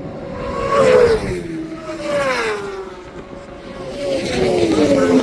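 Racing motorcycles passing at speed one after another, each engine's note dropping in pitch as it goes by, with three passes loudest about a second in, a little after two seconds and near the end.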